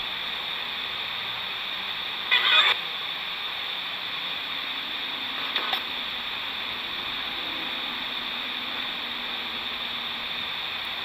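Steady hiss of radio static from a spirit box, with one short, louder crackle of noise about two and a half seconds in and a faint click near the middle.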